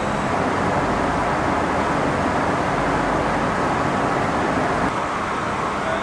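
Woollen spinning frames running: a steady, dense mechanical whirr from many spindles turning at once.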